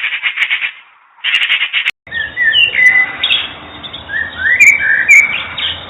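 Bird calls from two different recordings. First comes a fast, rattling chatter in two short bursts. About two seconds in it cuts to another bird singing a varied song of whistled, sliding notes over a steady background hiss.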